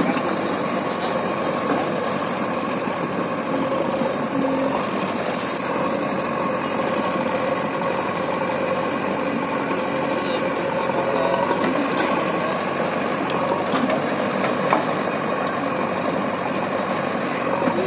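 Diesel engines of a JCB backhoe loader and a three-cylinder Eicher 551 tractor running steadily at an even pace.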